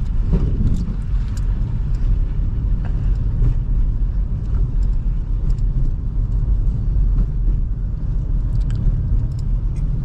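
2005 Toyota Highlander driving on a snowy road: a steady low rumble of engine and tyres, with a few faint ticks over it.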